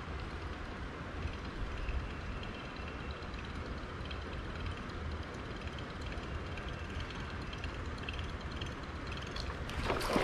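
Steady low rumble and hiss of open-air background during a buzzbait retrieve. Near the end, a sudden splash as a snakehead strikes the buzzbait on the surface.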